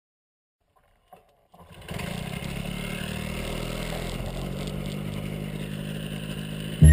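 Ultralight trike's engine and pusher propeller running steadily, starting about a second and a half in. Music cuts in loudly at the very end.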